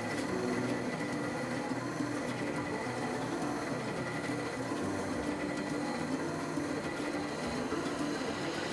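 Wood lathe running steadily while a bit held in the tailstock bores into the end of the spinning wooden pepper mill blank.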